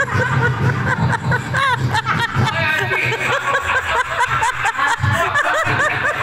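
Rapid, continuous made-up vocal noises, many short rising-and-falling squeaky calls, with stifled snickering and chuckling mixed in.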